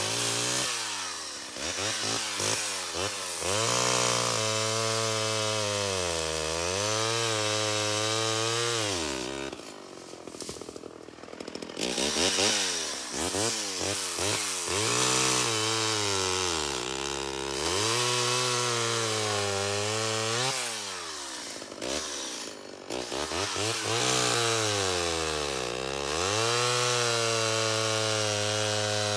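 Vintage 1970s Homelite XL-12 two-stroke chainsaw cutting through a fallen white oak log, its engine held at high revs and sagging in pitch, then recovering, as the chain bites. Twice, about ten seconds in and again past twenty, it drops back toward idle between cuts before revving up again.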